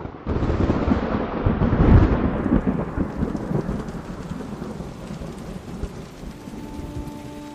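Thunder rumbling over steady heavy rain: it breaks in suddenly, is loudest about two seconds in, then slowly fades, leaving the rain.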